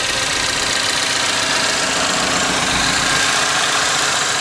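2014 GMC Terrain's 2.4-litre four-cylinder engine idling steadily, heard close up in the open engine bay, with the accessory belt and pulleys turning.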